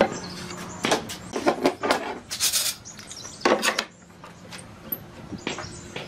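Irregular knocks and taps on wood from hand woodworking, with a short scraping hiss about two and a half seconds in.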